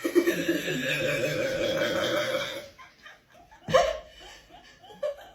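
A person's long, rough burp lasting about two and a half seconds, then a short burst of sound and a few brief laughing sounds near the end.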